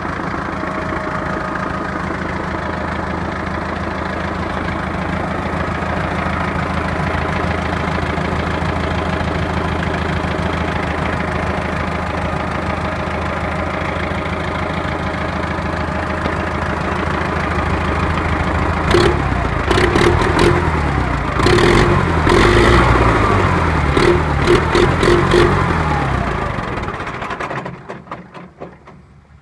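Belarus tractor's diesel engine idling steadily, then changing speed up and down a few times with sharp clattering knocks. The engine cuts off shortly before the end.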